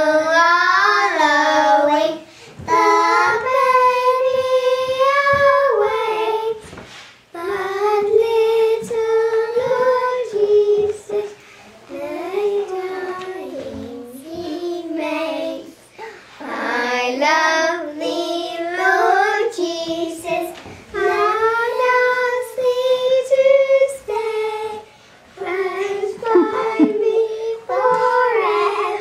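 Young girls singing a song together, in sung phrases with short breaks between them.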